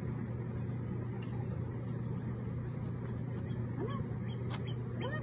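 A dog whining twice in short rising-and-falling cries, about four seconds in and again near the end, over a steady low hum.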